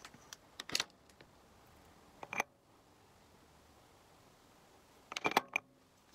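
Short clicks and taps of makeup containers and tools being handled and set down, in three quick clusters: about a second in, around two and a half seconds, and just past five seconds, the last the loudest.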